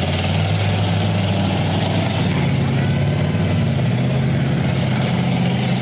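Engines of several demolition derby cars running and revving together, a steady drone with shifting pitch.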